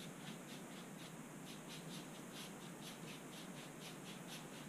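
Paintbrush scrubbing acrylic paint back and forth across a canvas: a faint, rhythmic scratching of about four to five strokes a second.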